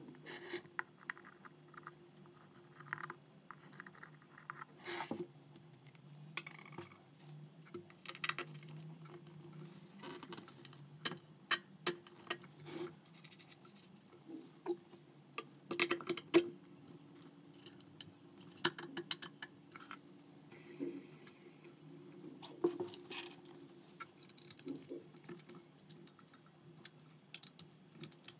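Scattered clicks, taps and light knocks of small metal parts and plywood being handled while a table-saw shaft, coupler and blade are fitted and tightened with a hex key, over a faint steady low hum.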